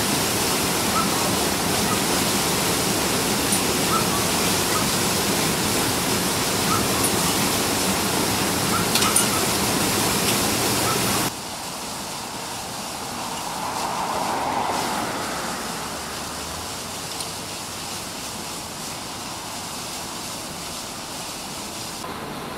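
Water gushing from a sheared fire hydrant, a loud, even rush. About halfway through it cuts off abruptly to a quieter steady background noise, which swells briefly a few seconds later.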